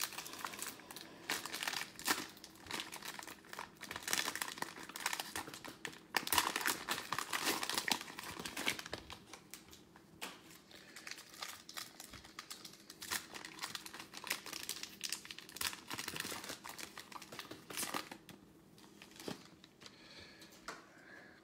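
Panini Prizm football card pack torn open by hand, its plastic wrapper crinkling and crackling irregularly. The crackling is densest in the first half and thins out later on.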